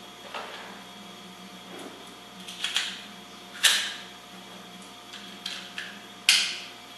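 Hard plastic clicks and rattles from a Beyblade launcher and its toothed ripcord being handled, with the spinning top being fitted onto the launcher. There are several sharp clicks, the two loudest about three and a half seconds in and near the end.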